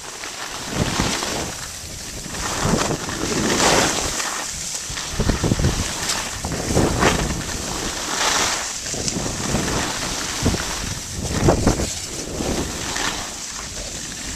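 Skis scraping and hissing over packed snow during a run down a groomed slope, swelling and fading irregularly with the turns, mixed with wind rushing over the microphone.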